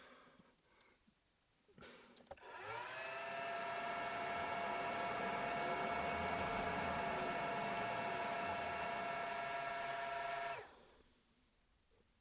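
A small, high-speed electric motor of a workshop power tool. It spins up with a rising whine about two and a half seconds in, runs steadily with a high-pitched whine for about eight seconds, and cuts off abruptly. A few light knocks of handling come before it starts.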